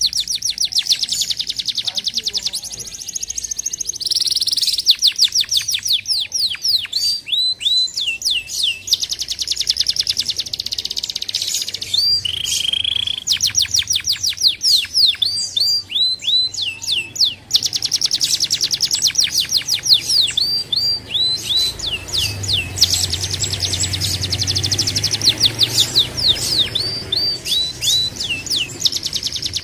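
Domestic canary singing a long, continuous song of fast trills, changing phrase every few seconds, with runs of quick repeated downward-sweeping notes.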